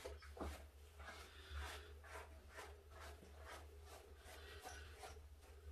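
Faint brushing strokes of a small palm brush on a ragdoll cat's fur, about three a second, over a low steady hum.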